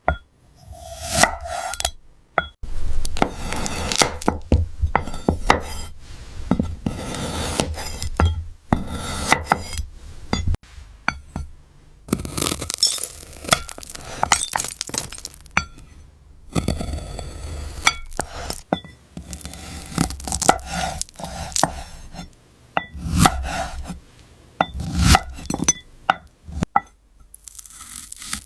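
A knife cutting fruit: a long run of short, crisp cuts and knocks, with stretches of slicing and scraping between them.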